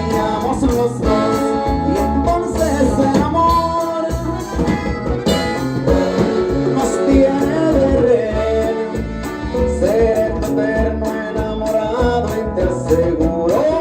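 Live Latin band music: an instrumental passage between sung verses, with a melodic lead over a steady beat.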